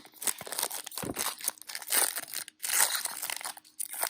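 Plastic trading-card pack wrapper crinkling and tearing in irregular crackles as the pack is ripped open.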